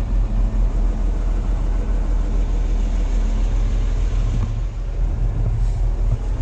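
Tractor engine idling with a steady low rumble.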